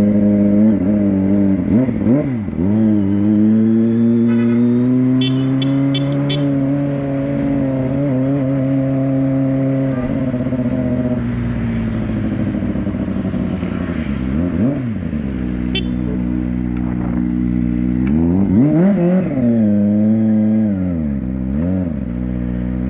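Motorcycle engine running steadily, revved briefly a few times with quick rises and falls in pitch. A few sharp clicks come about five to six seconds in.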